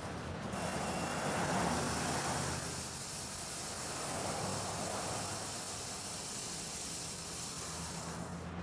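Steady rushing noise of a passing vehicle, swelling about a second in and again around four seconds in, starting and stopping abruptly.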